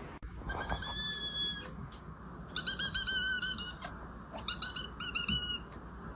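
A cat making high-pitched squeaks that sound like a squeaky toy: one long squeak, then a quick run of short squeaks, then a few more.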